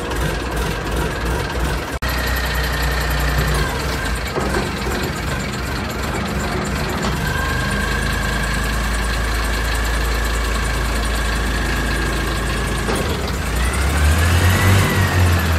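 Rough terrain forklift's diesel engine running steadily with a steady high whine over it, then revving up near the end as the whine rises and falls.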